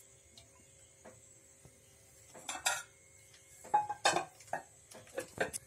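Metal kitchen utensils and cookware clinking and knocking: a sharp clatter about halfway through, a cluster of louder knocks and clinks a little later, then a few lighter clicks near the end.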